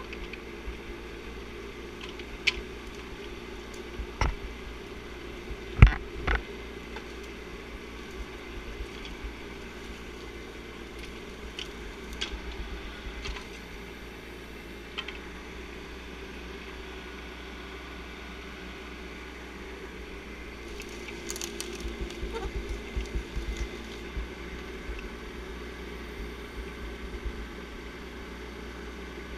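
Bobcat 418 mini excavator's engine running steadily as the machine crawls along a dirt trail, with a few sharp knocks and cracks, the loudest about six seconds in, and a rougher, louder rumble between about 21 and 24 seconds in.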